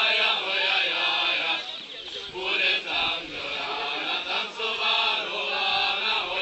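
A group of voices, mostly men, singing a Moravian folk song together in long held notes.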